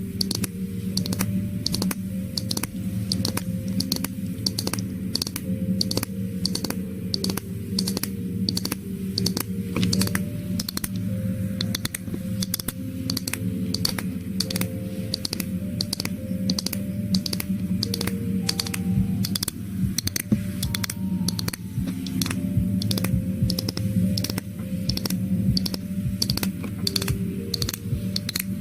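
A steady run of sharp clicks, about two or three a second, over soft background music with a slow melody.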